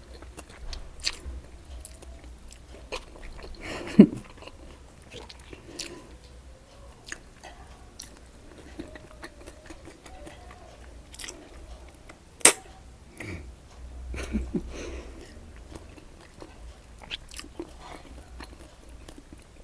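A person chewing and biting food close to the microphone, with many small mouth clicks and two sharper, louder smacks about four and twelve seconds in.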